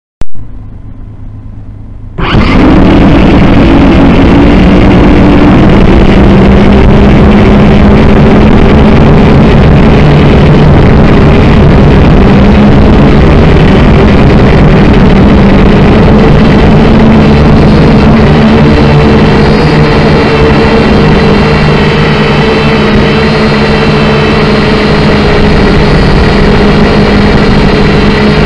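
Syma X5C quadcopter's four small coreless motors and propellers running with a loud, steady multi-tone whine that starts suddenly about two seconds in, after a single click. It is very loud, as if picked up right next to the motors.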